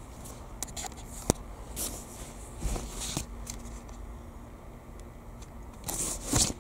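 Soft rustling of fleece and knit blankets as a small furry pet shifts about among them on a truck seat, with a single sharp click about a second in, over a low steady hum.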